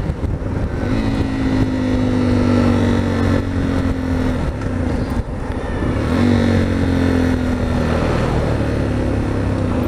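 Sinnis Terrain motorcycle engine running at a steady speed on the road, heard from the rider's position over road noise. About halfway the engine note drops away for a second or so, then picks up and holds steady again.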